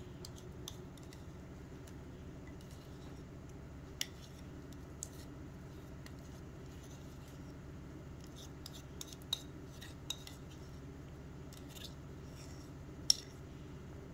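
A plastic spoon scraping and clicking against a bowl as soft whipped soap is scooped out and pressed into a silicone mold: a few scattered light clicks, the sharpest near the end, over a steady low hum.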